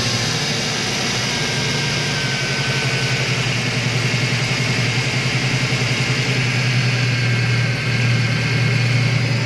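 Engine idling just after being started, running steadily with a humming whine over it. The mechanic traces this hum to a clogged oil strainer in an oil pan dented by hitting a rock.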